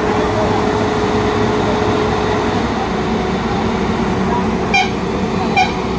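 Heavy truck diesel engines running steadily under load while an old crane tow truck winches a stuck goods truck out by cable, with a steady whine that drops slightly in pitch partway through. Near the end come three short, sharp honk-like blips about a second apart.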